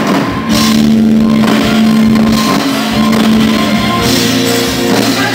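Live rock band playing electric guitar, bass guitar and drum kit, with a low note held through the first half.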